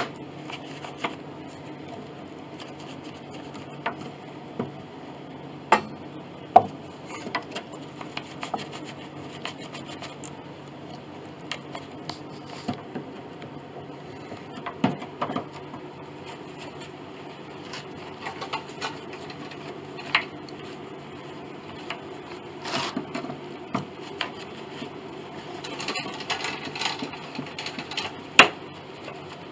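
Hand work on a piano soundboard: scattered light clicks, taps and knocks of wood and tools, with rubbing and scraping, over a steady low hum. Near the end comes a denser stretch of scraping as a brush works in a glass jar of hot glue.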